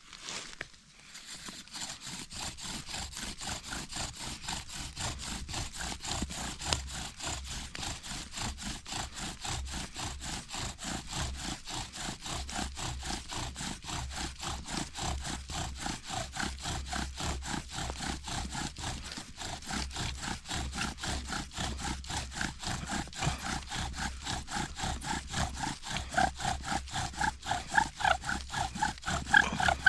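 Bow drill friction fire being worked: the wooden spindle rubbing and squeaking in the hearth board, its top turning in the ESEE Laser Strike handle used as a bearing block, in a fast, steady back-and-forth rhythm of bow strokes. The squeak grows louder and more pronounced over the last few seconds as the friction heats the wood and the hearth begins to smoke toward an ember.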